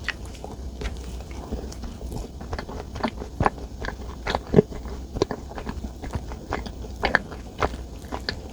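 A person chewing and biting into chocolate desserts close to the microphone, with many short irregular mouth clicks and smacks.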